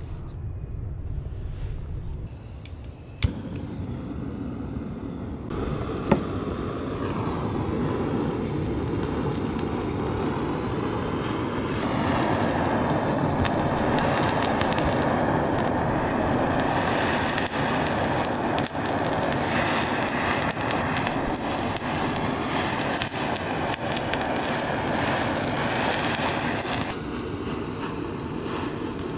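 Handheld butane gas torch burning with a steady hissing flame as it sears the skin of a sawara (Japanese Spanish mackerel) fillet in a wire grill basket. Sharp clicks about three and six seconds in; the flame noise grows louder about twelve seconds in and drops back a little near the end.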